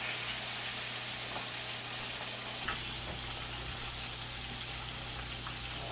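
Red snapper head and collarbone pieces frying in hot oil: a steady sizzle with a few faint pops and crackles.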